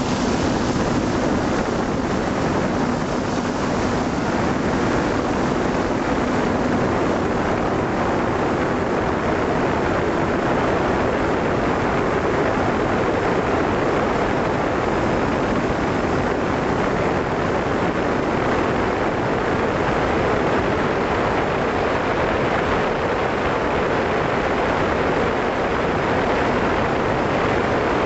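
Steady rushing noise of wind buffeting the microphone mixed with the drone's propellers, recorded by the camera on a multirotor drone in flight.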